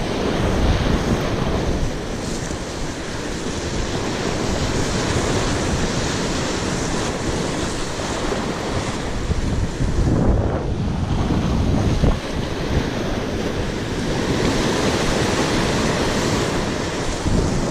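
Sea surf breaking and washing over coastal rocks in a steady rush, with wind buffeting the microphone.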